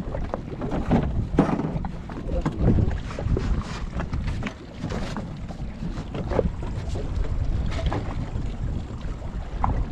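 Wind buffeting the microphone on a small open boat at sea, an uneven low rumble with scattered knocks.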